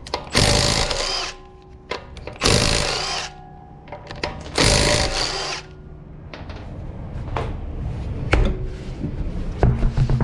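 Impact wrench with a 17mm socket spinning off a car's wheel bolts, rattling in three bursts of about a second each, two seconds apart. After that it is quieter, with a few sharp clicks and knocks.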